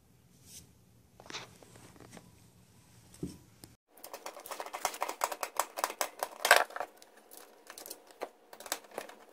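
A screwdriver driving screws into a sheet-metal cord bracket on the back panel of an electric range. After a few faint knocks as the bracket is handled, a quick run of small metallic clicks and scrapes starts about four seconds in, loudest past the middle, then thins out.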